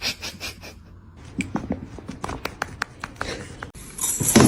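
A quick, irregular run of light clicks and taps, about a dozen over two seconds, followed near the end by a sudden louder rushing hiss.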